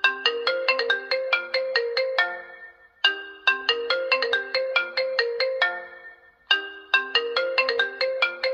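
Smartphone ringtone: a short, bright melody of quick notes that repeats about every three and a half seconds, each phrase starting loud and fading away.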